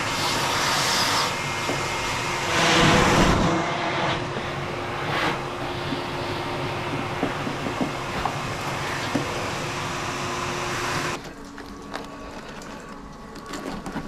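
Bee vacuum running with a steady whooshing motor noise, surging louder for a moment about three seconds in, and cutting off about eleven seconds in. After it stops come quieter crackling and scraping sounds of dry wax comb being cut away.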